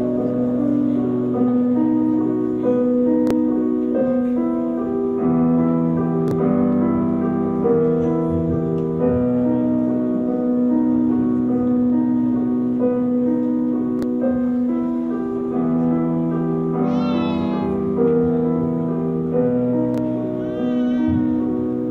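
Instrumental piano music with held notes moving in a slow, repeating pattern. Twice near the end, a short high warbling sound rises over it.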